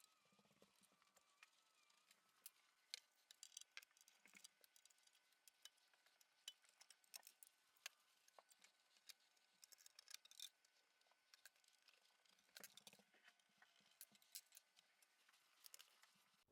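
Faint, irregular clicks and clinks of metal parts and hand tools as an antique cash register is taken apart, over a faint steady hum.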